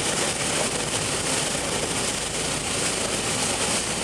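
Steady noise heard from inside a car driving through shallow floodwater: the engine and the tyres running through water on the road.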